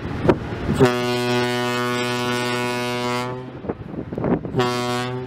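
Horn of the ferry Issaquah: one long blast of about two and a half seconds, then a short blast near the end.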